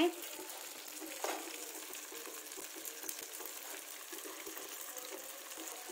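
Kheema-topped tomatoes cooking in oily gravy in a kadai: a soft, steady sizzle with many small bubbling pops and crackles.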